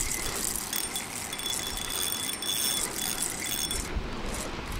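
Fishing reel being cranked against a hooked carp, a rattling, clicking winding with a broken high whine, over wind rumbling on the microphone.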